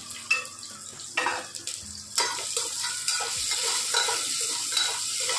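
Sliced onions frying in hot oil in a pressure-cooker pan, stirred with a spoon that knocks and scrapes against the pan. A few clinks in the first two seconds, then a steady sizzle from about two seconds in.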